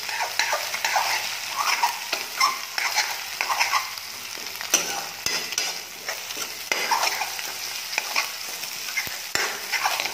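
Metal spoon scraping and stirring in a metal kadai as potatoes, onion and a freshly added egg fry and sizzle, with a few sharp knocks of the spoon against the pan.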